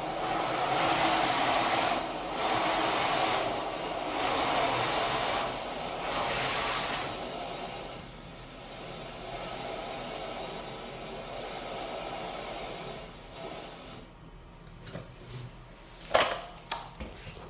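A motor-driven machine running in bursts of a second or two, then more quietly and steadily, with a few sharp knocks near the end.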